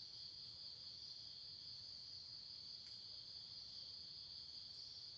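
Faint, steady high-pitched trilling of crickets, unbroken throughout.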